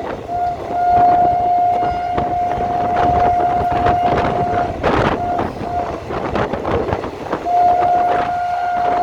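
A passing train with its horn sounding one long steady note, breaking off about five seconds in and sounding again near the end, over the running rumble and clatter of the train. A single sharp knock comes about five seconds in.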